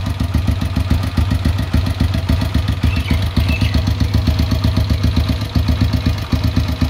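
Motorcycle engine idling with an even, rapid putter.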